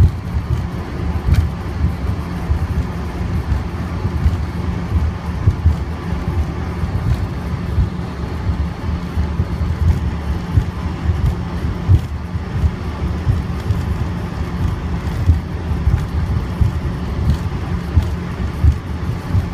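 Airliner cabin noise while taxiing on the ground: a steady low rumble from the engines and rolling wheels, choppy with small irregular jolts.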